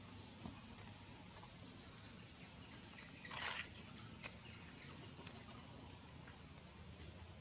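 A bird calling: a quick run of short, high chirps, about five a second, lasting a couple of seconds midway, with one louder, falling note in the middle of the run.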